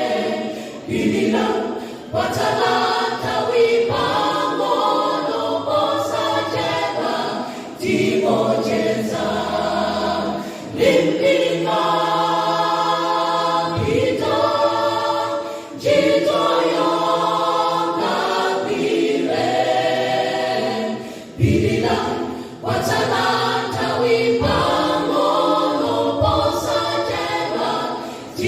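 Church choir singing a gospel song in several voice parts, in phrases with brief breaks between them.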